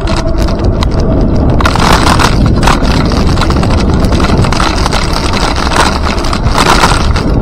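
Wind buffeting the microphone over a steady rumble of road noise from riding along a paved trail, with brief louder rattling bursts about two seconds in and near the end.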